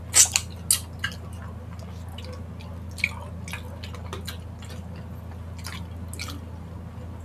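Close-up wet eating sounds of spicy chicken feet eaten by hand: scattered short smacks, sucks and squelchy chewing clicks, the sharpest in the first second, over a steady low hum.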